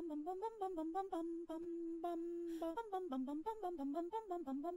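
A woman humming a wandering tune, with one note held steady for about a second and a half near the middle.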